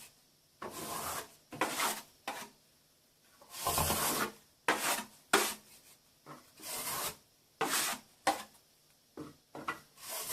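A steel plastering knife scraping and smoothing wet-area base coat into an internal corner join, in about a dozen short, irregularly spaced strokes.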